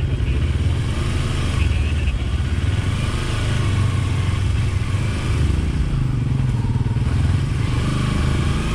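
Adventure motorcycle's engine running steadily while being ridden, with a rushing noise over it.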